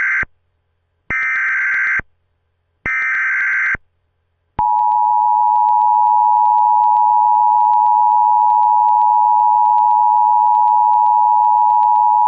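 Emergency Alert System opening: the end of one SAME header data burst, then two more buzzing digital bursts of about a second each, a second apart. About four and a half seconds in, the long, steady, loud EAS attention tone starts and holds.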